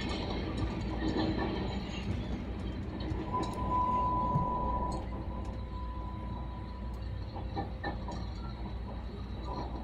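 Elevated rapid-transit train running, heard from inside the car: a steady rumble of wheels on the track with scattered light clicks, and a steady high whine held for a few seconds about three seconds in.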